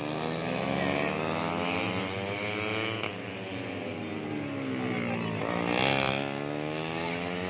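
150cc four-stroke underbone race motorcycles running at high revs, engine pitch rising and falling as they shift and pass, with one louder pass about six seconds in.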